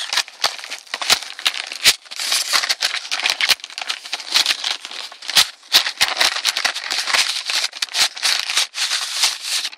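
A brown paper mailer envelope rustling and crinkling as it is handled and turned over, with many sharp crackles.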